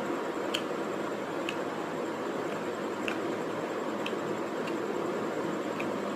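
Someone chewing food, with short wet mouth clicks about once a second over a steady background hiss.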